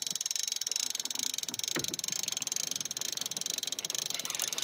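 Hand-crank winch on a tilting boat trailer clicking rapidly and evenly as it is cranked, letting the tilted trailer bed down level. One dull knock comes about two seconds in.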